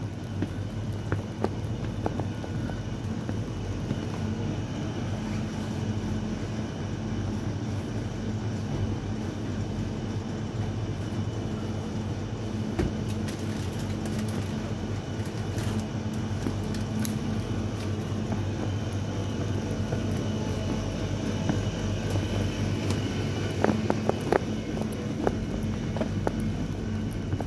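Steady electrical hum of a shop's refrigerated freezer and fridge cabinets, with scattered light clicks and knocks, a few sharper ones close together near the end.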